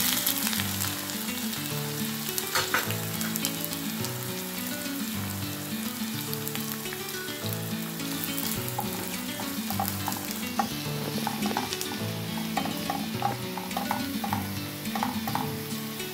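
Sliced onions and spring onions sizzling in hot oil in a non-stick pan. The sizzle jumps up at the start as they go in and holds steady, with short scrapes and taps of a spatula stirring them, more of them in the second half.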